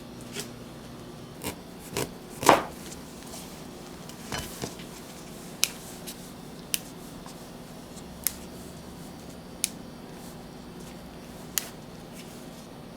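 Sharp clicks and knocks of kitchen tools being handled during food preparation, the loudest a couple of seconds in, then single clicks about every second and a half, over a steady low hum.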